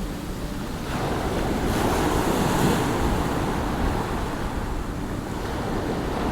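Heavy surf breaking and washing up the beach, with strong wind gusting over the microphone as a low rumble. The surf swells louder about a second in.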